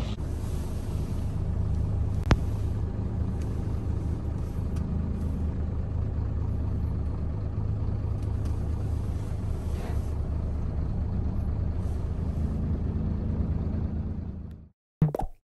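Scania box truck's diesel engine running steadily with a low rumble, with one sharp click about two seconds in. The engine sound cuts off abruptly shortly before the end.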